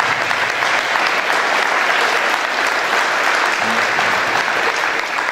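Audience applauding, a dense crackle of many hands clapping that begins to fade near the end.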